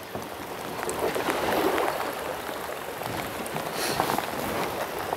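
Water sloshing against the hull of a small wooden boat being pushed with a pole through floodwater: a steady wash of water noise.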